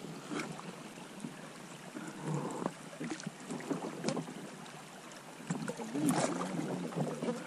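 Someone wading through shallow river water: irregular sloshing and splashing with a few light knocks, heaviest about two and six seconds in.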